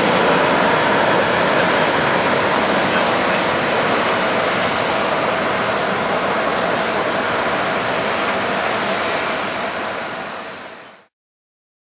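Boeing 747-400D's four General Electric CF6-80C2 turbofan engines at takeoff thrust as the jet climbs out: a loud, steady jet roar with a faint whine, slowly dying away and then fading out about eleven seconds in.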